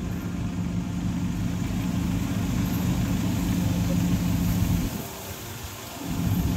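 Off-road 4x4 vehicle engine running with a steady low drone. The sound eases off for about a second around five seconds in, then picks up again.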